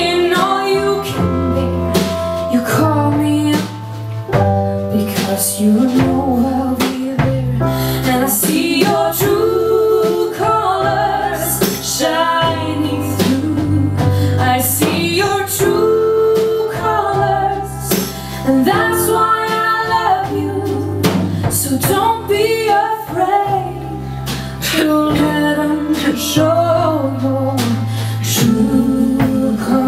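Live band music: a woman singing over guitar, bass and drums.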